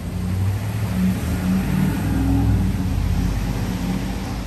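Heavy tow truck's diesel engine pulling under load as it drives past with a cable car in tow. The engine pitch rises from about a second in and is loudest near the middle, over the noise of passing traffic.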